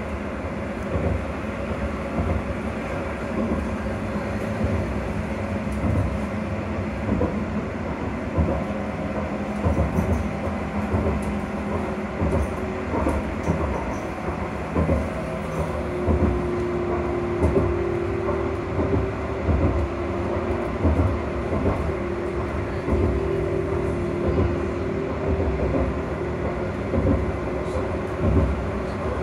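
AC traction motors of an electric rail vehicle running, heard from inside the passenger saloon under a steady low running rumble with occasional knocks. A motor tone holds steady, and a higher steady tone comes in about halfway through.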